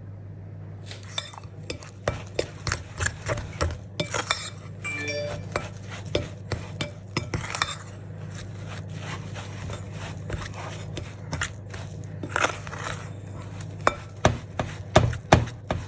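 A utensil clicking and scraping against a mixing bowl in irregular bursts as almond biscuit dough of ground almonds, egg, icing sugar and lemon zest is stirred together.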